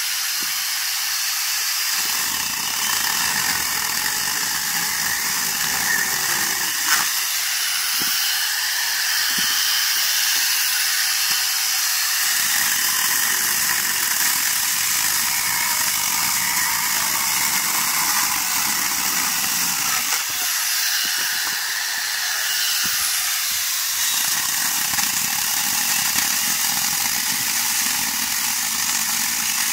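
Corded electric angle grinder fitted with a small chainsaw bar and chain, running without a break as it saws through firewood logs. The sound is a steady high whir with a lower cutting noise that swells and fades every few seconds as the chain bites into each log.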